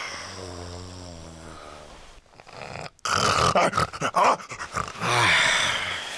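A person snoring loudly. It starts as a low steady drone, then about three seconds in turns to a rough, rattling snort, and near the end it falls in pitch.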